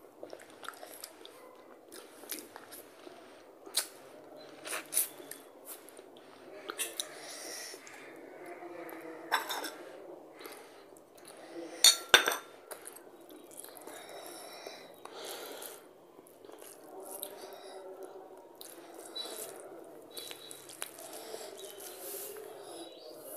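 Close-up eating sounds: rice and curry mixed by hand on a steel plate and chewed, with many small wet clicks and squishes. There is a sharp knock about halfway through, the loudest sound.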